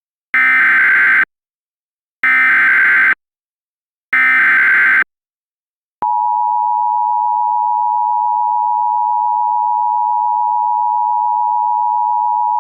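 Emergency Alert System SAME header: three harsh digital data bursts, each about a second long and a second apart, announcing a new alert. About six seconds in, the two-tone EAS attention signal starts and holds one steady, unwavering dual tone.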